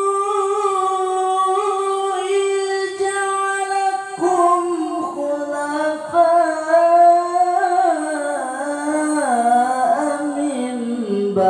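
A teenage boy's voice in melodic Quran recitation (tilawah), amplified through a microphone: a long drawn-out melisma held on a high pitch, then wavering and sinking lower in the second half.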